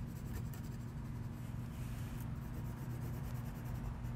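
Felt-tip washable marker rubbing and scratching over a styrofoam plate as a section is coloured in, faint, over a steady low hum.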